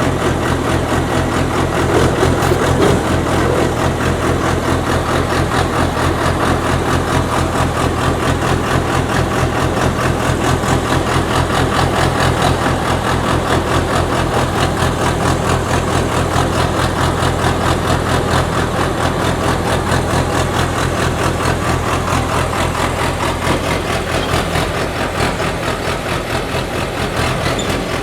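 Engine of an HQZ-320L crawler-mounted pneumatic water well drilling rig running steadily, with a fast, even pulse and a deep, heavy low end.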